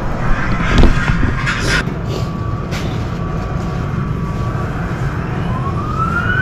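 Steady low rumble with a couple of knocks; near the end a siren starts up, its pitch rising.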